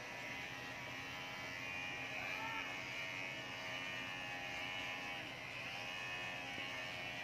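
Corded electric pet hair clipper running with a steady buzz while trimming a shih tzu's leg fur.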